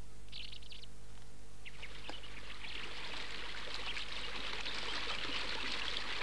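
A brook babbling and trickling, fading in about two seconds in and then running steadily. A short bird chirp comes just before it, near the start.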